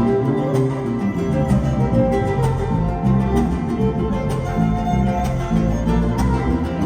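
Huasteco trio playing an instrumental huapango passage: violin melody over the steady strumming of the jarana huasteca and quinta huapanguera.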